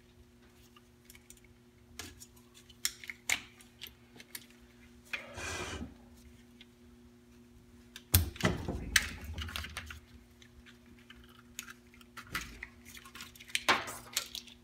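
Metal transmission parts and bolts being handled on the bench: scattered clicks and clinks, a short scrape about five seconds in, and a heavier clunk with a rattle about eight seconds in.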